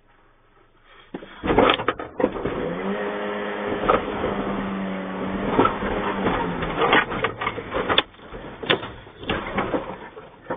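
A vehicle's sheet-metal bonnet crunching and buckling as an elephant pushes down on it, heard from inside the cab: a run of bangs and knocks starting about a second in, a long creaking groan of metal under load in the middle, then further scattered knocks near the end.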